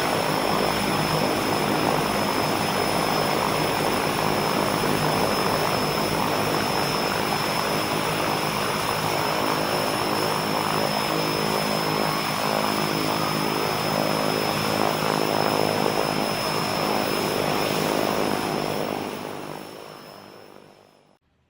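Propeller airplane's piston engine running steadily, with a thin constant high whine over it; the sound dies away over the last couple of seconds.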